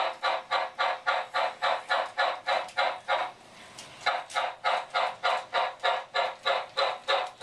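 Electronic steam-chuff sound from the MTH RailKing Southern Pacific Daylight 4449 O-scale locomotive's Loco-Sound system: steady, even chuffs about three and a half a second, which break off for about a second a little past the middle and then resume at the same pace.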